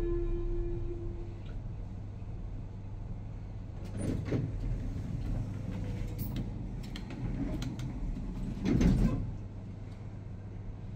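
The lower note of a Schindler lift's two-tone arrival chime dies away, then the lift's sliding doors run, with clattering about four seconds in and a louder thud near nine seconds. A steady low hum sits under everything.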